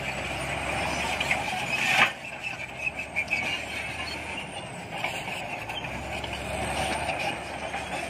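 Shantui SD22 crawler bulldozer's diesel engine running steadily under load as the machine pushes rock and dirt with its blade. A single loud clank about two seconds in.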